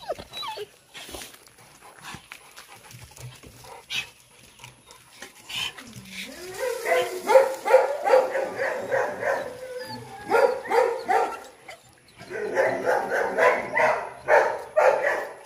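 Dogs barking in fast runs of barks: one run starting about six seconds in and lasting some four seconds, and another starting about twelve seconds in.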